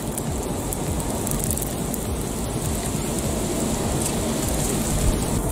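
Open wood fire crackling under chicken pieces on a bamboo-stick grill, over a steady low rumble.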